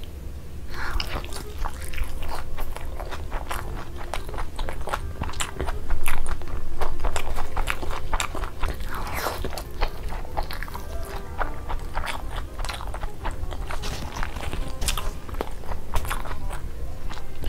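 Close-miked, amplified wet chewing and lip-smacking of a person eating whole fried sunny-side-up eggs in big mouthfuls, with irregular clicks and squelches, loudest about six seconds in.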